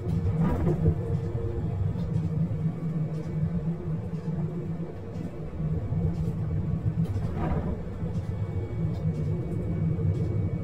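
Diesel railcar running along the line, a steady low rumble with a constant mid-pitched tone. Two brief louder rushes come through, just after the start and about seven seconds in.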